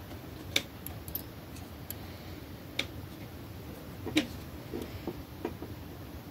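Scattered sharp metallic clicks from a Brother KH710 push-button knitting machine being worked on test knitting, irregularly spaced over a faint steady hiss, the loudest about half a second in and again a little past four seconds.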